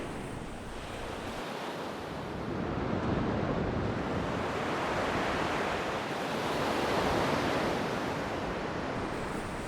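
Ocean waves washing on a shore: a steady rushing surf that swells and eases twice.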